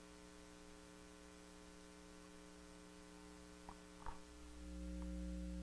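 Electrical mains hum picked up by a telephone pickup coil on a sound-powered telephone's receiver, with two faint clicks; the hum grows louder about four and a half seconds in.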